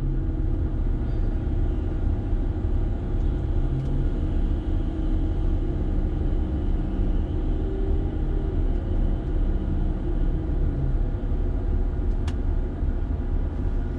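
Liebherr mobile crane's engine and hydraulics running steadily under load, heard from inside the operator's cab as a low rumble with a faint steady hum. One short click sounds near the end.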